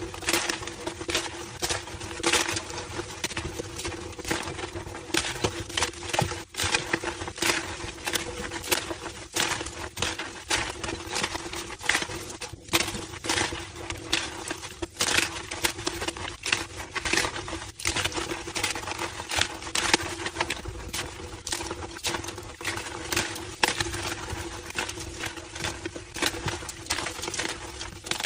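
Homemade gym chalk slabs being crushed, a dense irregular run of squeaky crunches and crackles.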